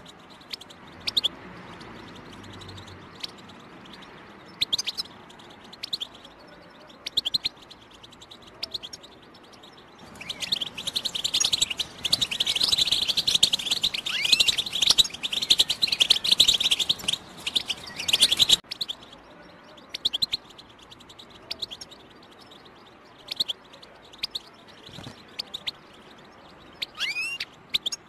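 European goldfinch twittering: short calls a second or two apart, then a fast, dense run of song about ten seconds in that cuts off abruptly some eight seconds later. Scattered calls follow, with a quick trill near the end.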